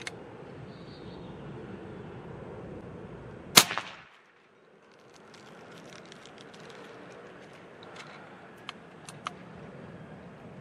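A single shot from a 4.5 mm PCP air rifle about a third of the way in: one sharp crack with a brief ringing tail. A few faint clicks follow near the end.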